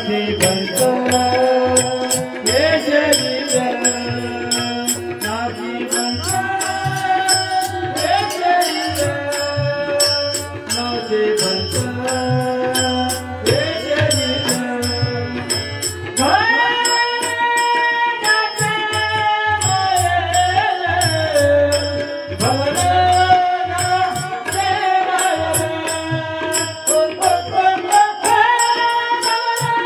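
Devotional song with tabla accompaniment: a voice holds long notes and slides between pitches over a steady, fast drum rhythm.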